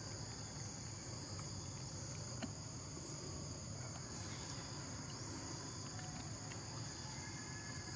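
A steady chorus of insects, a continuous high-pitched drone, with a few faint, very high arching calls over it about a second in, around three seconds and around five seconds.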